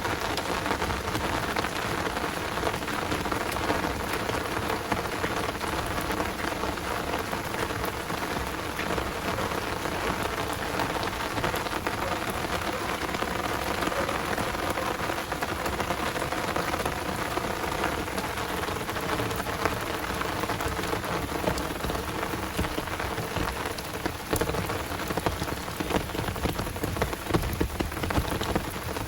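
Heavy rain pouring steadily, a dense patter of drops striking surfaces, with a few louder drop hits near the end.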